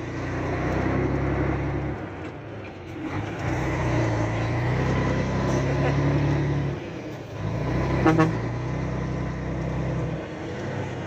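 Scania 113's six-cylinder diesel engine pulling away, heard from inside the cab with the window open; its note drops away briefly about 2 and 7 seconds in and picks up again at a new pitch, as with gear changes.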